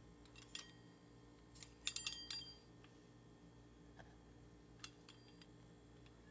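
Faint clicks and a few light metallic clinks, clustered about two seconds in, from a pizza cutter's wheel rolling through a thin sheet of semolina pasta dough on a wooden board, over a low steady hum.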